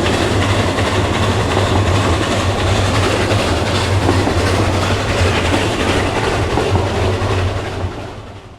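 A train running along the track, a steady rumble with wheel clatter and a low hum, fading out near the end.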